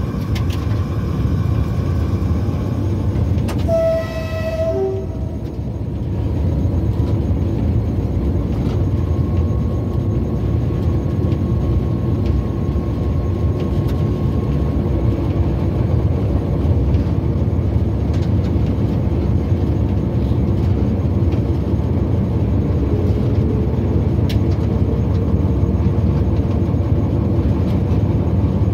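Passenger train running along the track, heard from on board: a steady, even running noise, with a brief toot about four seconds in.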